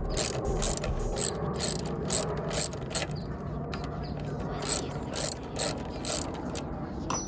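Hand ratchet wrench clicking as a mounting bolt on the PCM is worked loose: a run of quick clicks, a pause around the middle, then another run.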